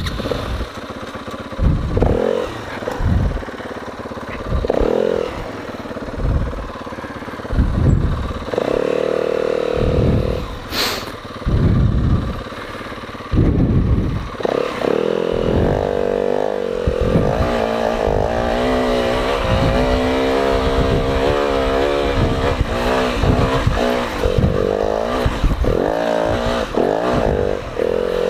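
Four-stroke off-road engine revving in repeated throttle bursts, then running hard at high revs with a wavering pitch, working under load on a steep climb over roots, rocks and wet dirt. A single sharp click is heard about a third of the way in.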